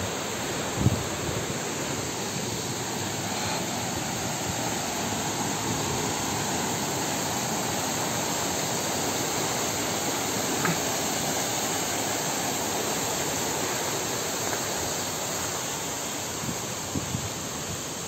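Steady rushing of flowing water, an even hiss that holds its level throughout. There is a short knock about a second in and a couple more near the end.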